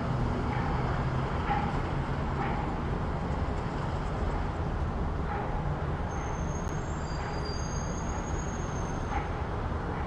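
Steady urban street ambience: a continuous rumble of road traffic from passing vehicles. A faint, thin high-pitched squeal rises out of it about six seconds in and lasts roughly three seconds.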